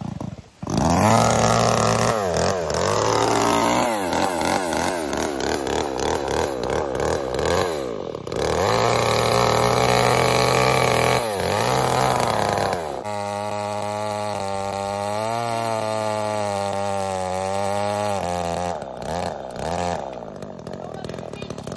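Two-stroke gas chainsaw cutting a fallen pine limb, its engine revving up and down with the throttle. It drops off briefly twice, runs steady for about five seconds in the second half, then blips a few times and dies away near the end.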